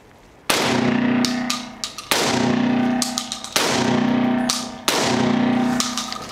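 Four loud distorted electric-guitar chord hits, each struck sharply and left to ring for about a second and a half, over semi-automatic shotgun fire with a few sharp cracks between the chords.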